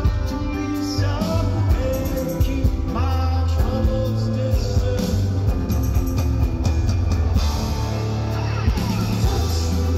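Live band performance of a synth-pop song: synthesizer keyboards, heavy bass and drums, with a male lead voice singing long held notes.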